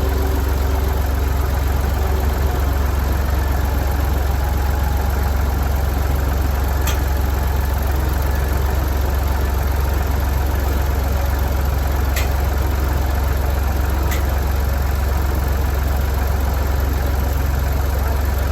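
An engine idling steadily, with a few faint sharp ticks.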